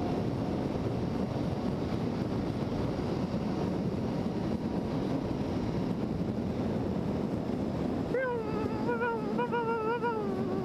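Wind rushing over a helmet-mounted microphone at highway speed, with the Triumph Street Triple 675R's three-cylinder engine running under it. About eight seconds in, a wavering pitched tone with overtones comes in and then steadies near the end.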